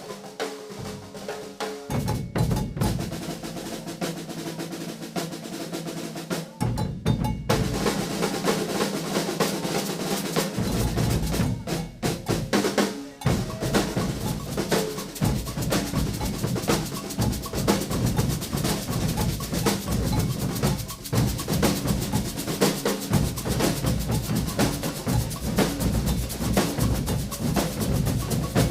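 Maracatu percussion group drumming together: deep alfaia bass drums under caixa snare drums, with a snare-roll texture. It starts lighter, has a brief drop about seven seconds in, and the bass drums play fully from about ten seconds in.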